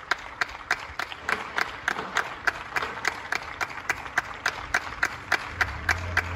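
Applause from many people on surrounding balconies, a spread-out wash of clapping, with one nearby pair of hands clapping steadily about three times a second. A low hum comes in near the end.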